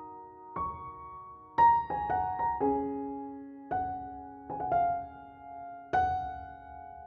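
Soft background piano music: single notes and chords struck one after another, each left to ring and fade.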